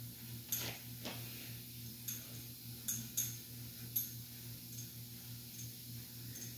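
Homemade barbell giving light, irregular metallic clicks and ticks as it is lifted from the floor and held at the thighs, over a steady low electrical hum.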